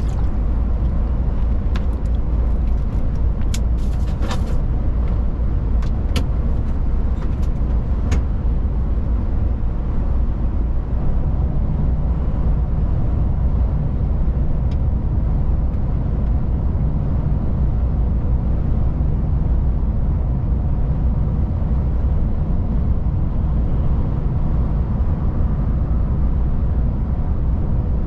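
DAF XF 480 truck running steadily at highway speed: a continuous low engine drone with tyre and road noise. There are a few sharp clicks or rattles in the first eight seconds.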